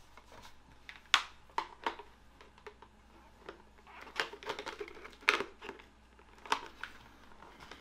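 Hard plastic clicks and knocks as a visor is worked onto a Simpson Speed Bandit helmet's side locking mechanism: about ten sharp clicks at irregular intervals.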